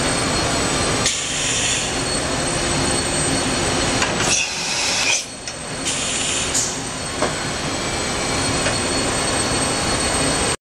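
Matsuura RA-IIF CNC vertical machining center running: steady mechanical noise with a thin high whine, three short stretches of louder hiss, and a couple of sharp clunks.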